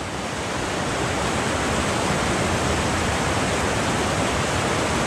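Whitewater rapid: a steady rush of churning water over rocks, growing a little louder over the first couple of seconds.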